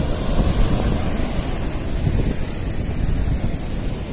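Wind buffeting the microphone over the steady wash of surf breaking on the beach, a constant rumbling noise with no separate events.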